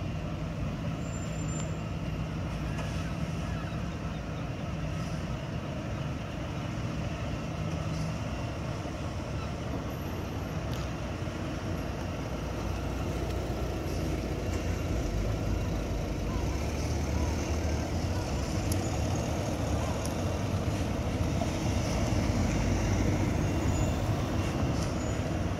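Heavy diesel truck engine running steadily, getting somewhat louder in the second half.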